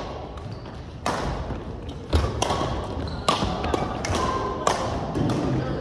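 Badminton rackets striking a shuttlecock in a doubles rally: a series of sharp hits roughly a second apart, echoing in a large hall, with a dull thud about two seconds in.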